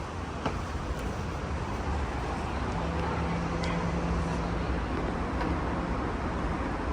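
Toshiba hydraulic elevator running: a steady low hum, joined for a couple of seconds by a low steady tone, with a few faint light clicks.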